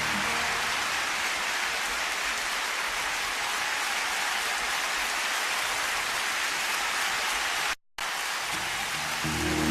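Concert audience applauding, a steady wash of clapping between songs. It drops out for a split second near the end, and sustained chords from the band come in just before the end.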